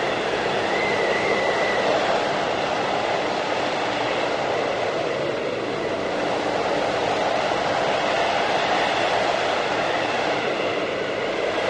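Blizzard wind in a whiteout: a steady, dense rush that eases slightly twice, with a faint wavering whistle about a second in.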